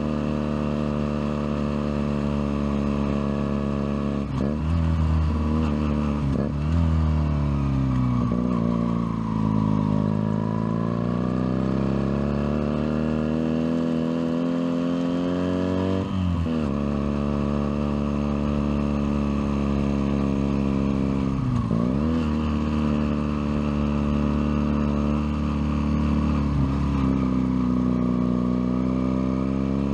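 Junak M11 Cafe motorcycle engine running under way, heard from on the bike. Its pitch sinks and climbs again several times: a long slow dip around ten seconds in and quick drops near the middle and two-thirds of the way through. A steady rush of wind and road noise runs beneath it.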